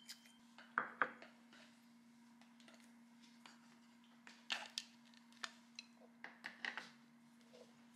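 Scattered light clicks and taps over a steady low hum, with a faint high steady tone that stops just after the start.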